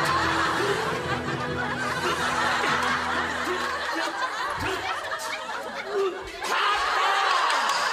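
Studio audience laughing throughout, a dense wash of many people's laughter that dips briefly about six seconds in.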